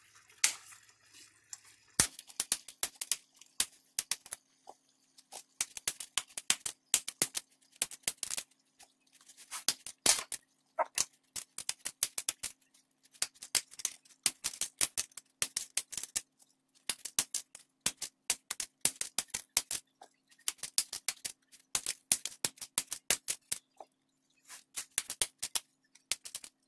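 Dry no-boil lasagna noodles being broken into pieces by hand: rapid clusters of sharp snaps and crackles, with short pauses between handfuls.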